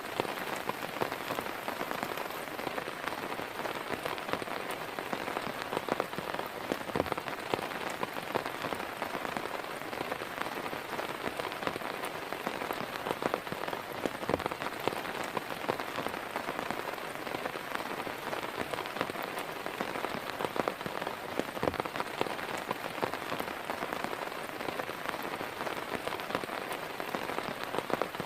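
Heavy rain falling steadily, with the sharp taps of many individual drops striking close by.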